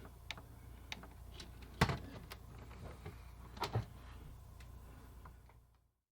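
Scattered small clicks and knocks of things being handled in a cupboard, two louder knocks about two and four seconds in, over a steady low hum; the sound fades out to silence near the end.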